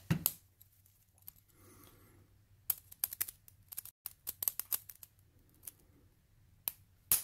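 Sharp metallic clicks and scrapes of a retaining-clip spreader working the clip off a lock cylinder being taken apart, with one louder snap near the end as the clip springs off.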